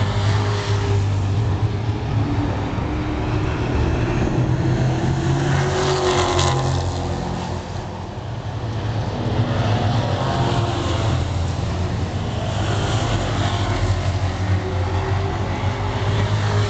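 Engines of a pack of stock race cars running on the oval, a steady loud drone that swells about six seconds in as cars pass close.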